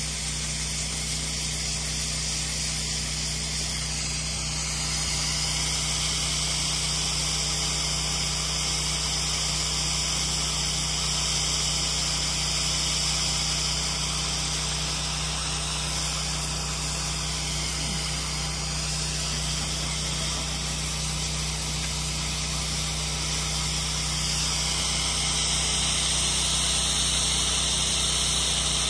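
Pressure-washing rig's pump running steadily with a constant hiss of spray as a cleaning mix is sprayed onto brick. The spray grows a little louder near the end.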